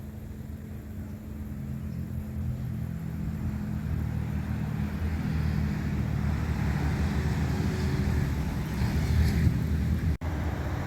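Low rumble of a motor vehicle engine, growing steadily louder, with a brief dropout near the end.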